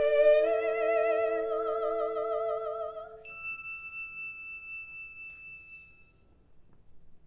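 Soprano soloist holding a high sung note with wide vibrato over a steady sustained orchestral note, both fading out about three seconds in. Then a single bright bell-like ding is struck and rings away over about three seconds.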